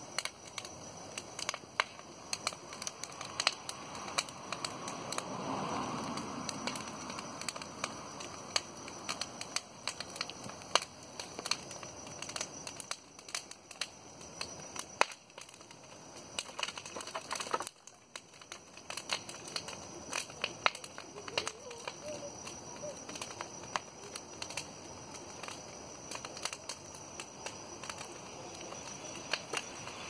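Large bonfire of branches burning, the wood crackling and popping with many sharp snaps.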